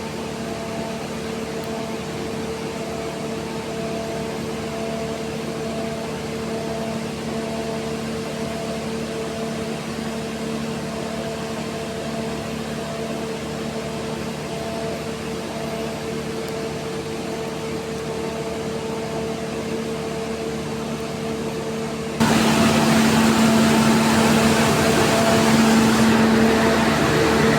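Steady machinery hum with a few fixed tones over a constant noise. About 22 seconds in it abruptly becomes louder and noisier.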